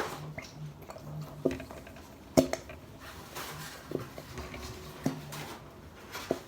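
Several separate knocks and clinks of a bowl and utensils being handled on a table, the sharpest about two and a half seconds in.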